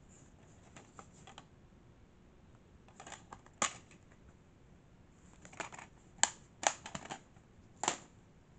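Plastic DVD case being handled: a sharp snap about three and a half seconds in as the case is opened, then a cluster of clicks and clacks from the plastic case between about five and a half and eight seconds.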